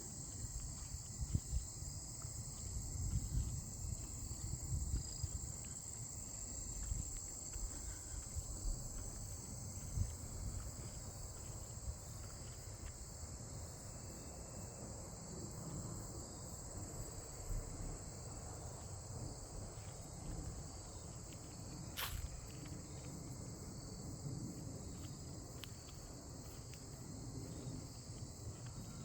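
Steady high-pitched insect chorus, with low irregular rumbling and knocks underneath and a single sharp click about 22 seconds in.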